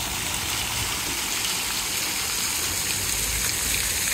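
A fountain spraying, its water falling into the basin in a steady splashing rush.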